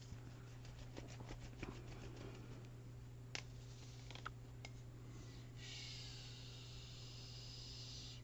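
Faint rustling and light clicks of paper and fabric being handled on a craft table, then a steady high hiss of about two and a half seconds near the end, over a constant low electrical hum.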